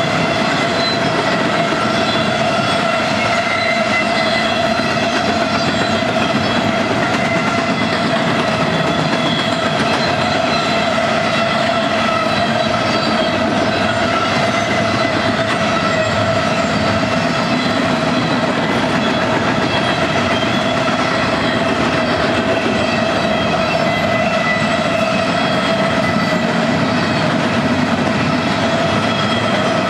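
Freight train cars rolling past at steady speed, wheels running on the rails, with a steady high whine held throughout.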